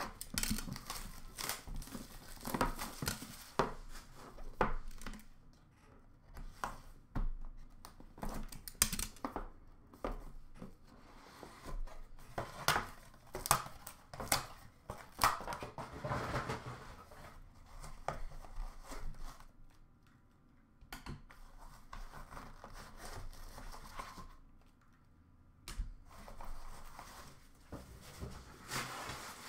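A sealed hockey card box being unwrapped and opened by hand: irregular tearing, crinkling and scraping of packaging and cardboard, with a couple of short lulls.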